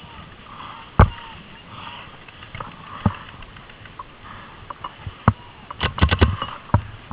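Paintball markers firing: a single loud shot about a second in, two more scattered shots, then a rapid string of four or five shots around six seconds in.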